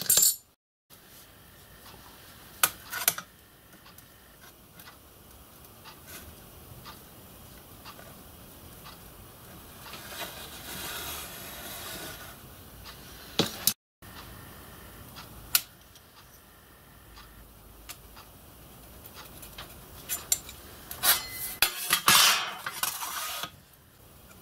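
Steel marking-out tools (marking gauge, square, rule) clinking and sliding against a brass sheet, with pencil rubbing as lines are marked out. Quiet scraping throughout, with a few sharp metallic clinks and a louder flurry of clinking and scraping near the end.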